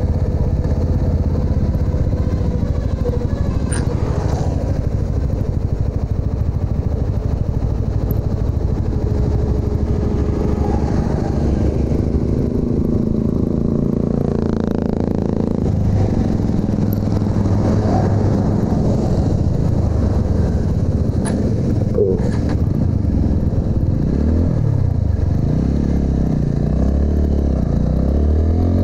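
TVS Apache RTR 200 motorcycle's single-cylinder engine running under way. Its note rises and falls with throttle and gear changes, most clearly in the last few seconds.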